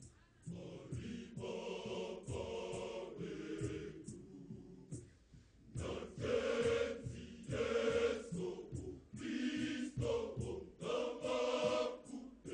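Large mixed choir of men and women singing a Shona Catholic hymn in harmony. The singing comes in phrases with short breaks between them, over a steady low beat of about three pulses a second.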